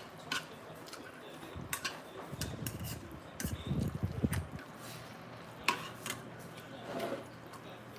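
Utensils clinking against bowls and dishes during a meal: a handful of sharp, separate clicks. A low, muffled noise runs for about two seconds in the middle.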